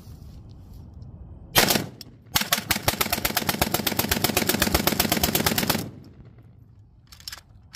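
AK-47-pattern rifle fired in the open: a brief burst about a second and a half in, then after a short pause a long rapid string of shots at about ten a second lasting some three and a half seconds.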